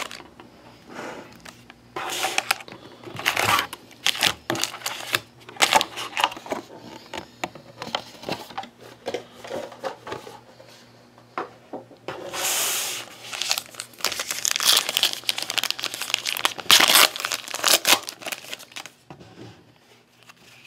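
Crinkling and rustling of trading-card pack wrappers as the packs are handled and stacked. About halfway through, a longer ripping rustle follows as a pack is torn open, then more rustling as the cards come out.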